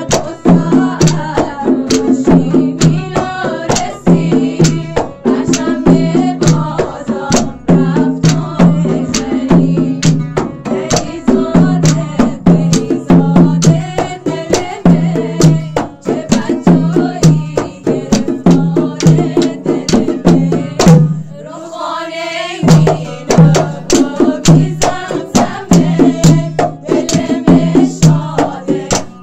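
Southern Iranian folk music played by an ensemble: rope-tensioned barrel drums and wooden clappers keep a dense, steady beat under an oud, with a woman singing. About two-thirds of the way through the drums stop for a moment, leaving a single sliding melodic line, then come back in.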